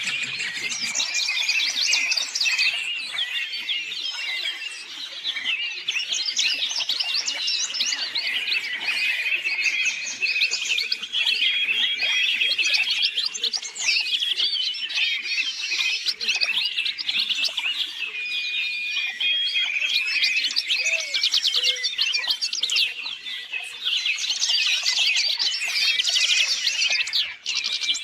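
Songbird song: a continuous stream of rapid, high chirps and trills.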